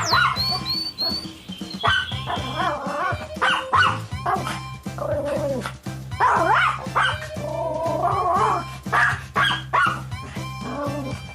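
Puppy yipping, barking and whimpering in short, repeated high calls over background music.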